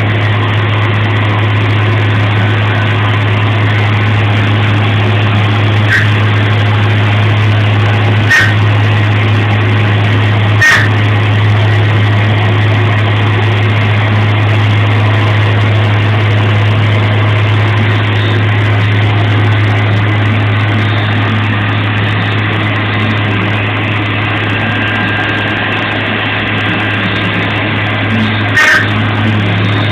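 CNC milling machine running while cutting a part: a steady, loud low motor hum under a wash of machining noise, with a few sharp clicks, three in the first half and one near the end.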